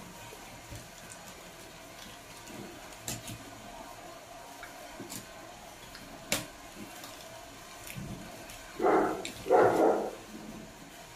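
Plastic-gloved fingers pulling flesh off a grilled milkfish, with a few faint sharp clicks. Two louder short rough sounds come about nine seconds in, half a second apart.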